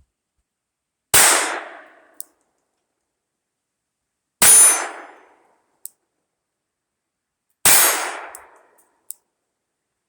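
Ruger LCP II .22 LR pistol fired three times, about three seconds apart, each shot trailing off over about a second. A faint tick follows about a second after each shot.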